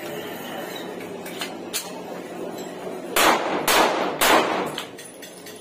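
Three pistol shots about half a second apart, each with a short echo off close concrete walls. A couple of faint clicks of gun handling come before them.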